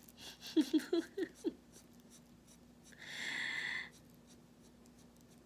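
Marker pen scratching over a small cut-out shape as it is coloured in, with one longer hissing stroke about three seconds in. A few short vocal sounds come near the start.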